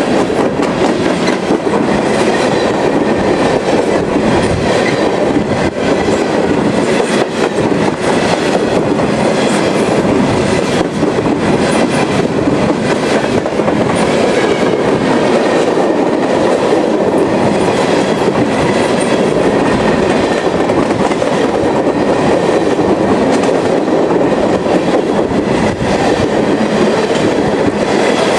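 A long freight train's cars rolling by on the rails: a steady rumble with the wheels clicking over rail joints.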